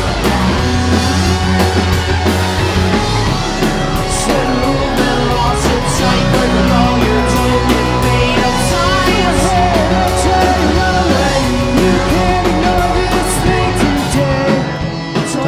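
Rock band playing live, with electric guitar, bass, drums and singing.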